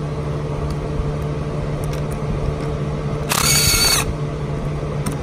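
Cordless driver with a 7mm socket run in a short burst about three seconds in, backing out one of the ABS controller's hold-down screws, its whine dropping in pitch as the trigger is let go. A steady low hum lies underneath.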